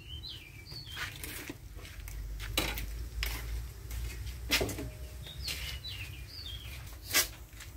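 A small bird chirps in two short bursts of quick high notes, at the start and about two-thirds of the way through. Several sharp clicks sound in between, the loudest near the end, over a steady low rumble.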